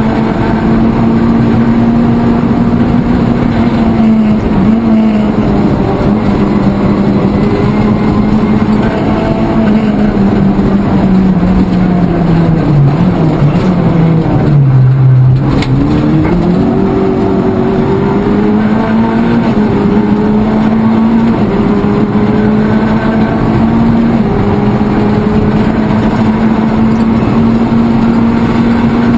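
Rally car engine heard from inside the cockpit, running hard at steady high revs. About halfway through the revs fall in steps as the car slows for a bend, then climb again as it accelerates away and settles back at high revs.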